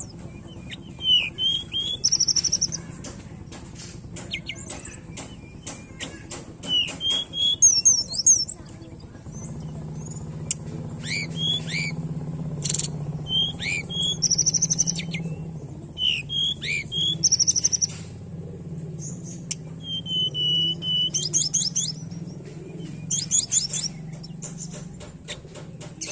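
Hill blue flycatcher singing: a string of varied high, sweet whistled phrases and chirps, with quick clicking notes early on and one held whistle near the end, over a faint low hum.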